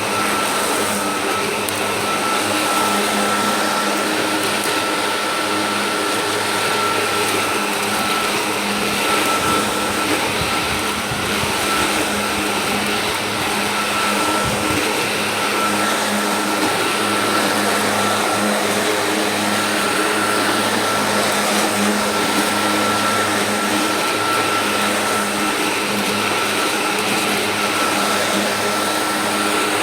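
Sun Joe electric hover lawnmower running steadily while mowing grass, its motor giving a steady whine.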